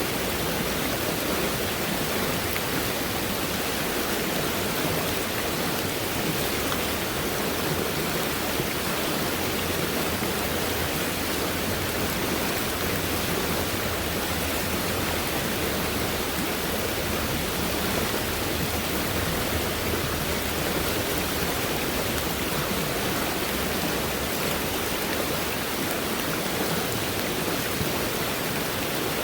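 Fast-moving stream swollen by heavy rain: a steady, even rush of flowing water with no breaks or separate splashes.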